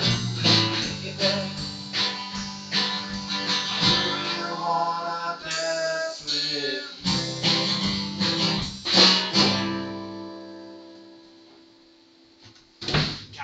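Acoustic guitar strummed in a closing instrumental passage, with a short moving melody line in the middle. A final chord rings out and fades, and a brief loud noise follows near the end.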